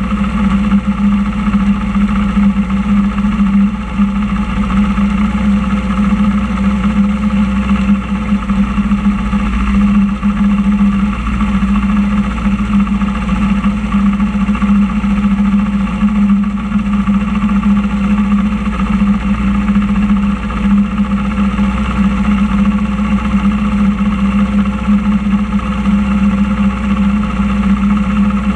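Motorcycle engine idling steadily: a constant low hum with no revving.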